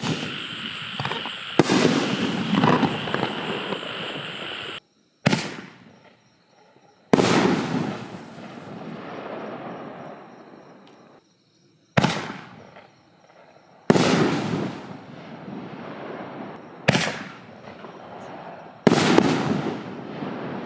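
Consumer aerial canister shells from a Liberty 24-count kit going off one after another: about seven sharp bangs over twenty seconds, each trailing off over a couple of seconds.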